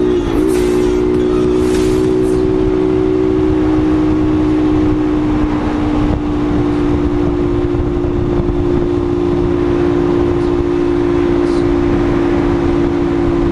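Honda CG Titan 125's single-cylinder four-stroke engine running at a steady cruising speed, a constant drone whose pitch wavers briefly just after the start, with wind rushing over the microphone.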